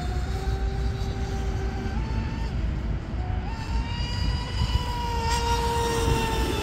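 Brushless electric motor (3674, 2200 kV on 4S) of an RC speedboat whining at high speed, its pitch shifting in steps with the throttle. A steady low rumble runs beneath it.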